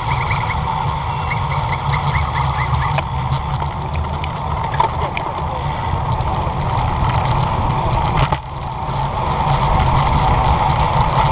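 Wind rushing over a bike-mounted camera's microphone with road noise from a road bike riding along in a group. A run of light chirping ticks sounds over the first three seconds, and the rush dips briefly a little past the middle.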